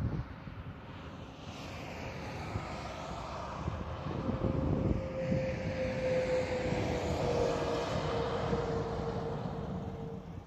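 A steady engine drone passing by, swelling through the middle with its pitch sinking slightly, over wind buffeting the microphone.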